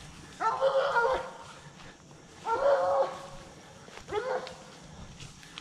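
Blood-trailing dog barking close to the microphone: three drawn-out barks about two seconds apart.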